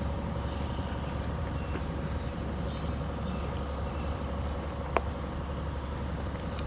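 Steady low outdoor rumble with a faint steady hum, and one sharp click about five seconds in.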